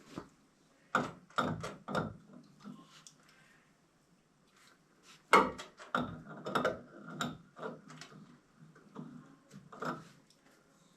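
Irregular clicks and knocks of a wrench and metal plumbing fittings being handled while a threaded fitting is tightened. The loudest knock comes about five seconds in.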